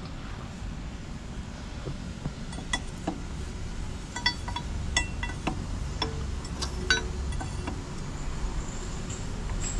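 Scattered light metallic clinks and taps of a spanner against the fittings of a mini excavator's hydraulic main pump, over a low steady rumble.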